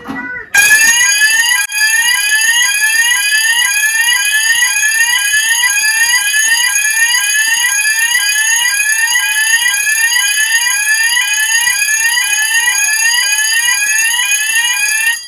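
Electronic fire alarm sounders on a conventional fire alarm panel going off together, very loud. A rising sweep repeats about once every three-quarters of a second over steady high-pitched tones, starting about half a second in and cutting off suddenly near the end.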